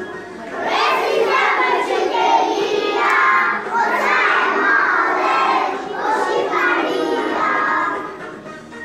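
A group of young children singing loudly together in phrases, many voices at once, dropping off near the end.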